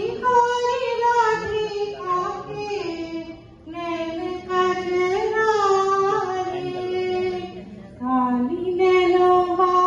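A woman singing solo into a microphone, amplified through PA speakers, with long held notes that glide from pitch to pitch and a short break for breath about three and a half seconds in.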